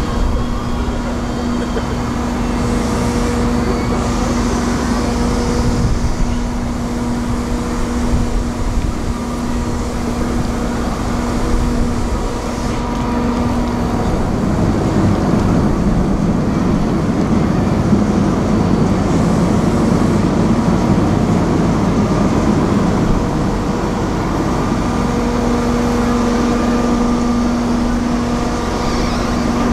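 Diesel machinery of a car ferry running at the quay: a steady low engine hum. From about fourteen seconds in, a louder, rougher rumble covers it for roughly ten seconds, then the steady hum returns.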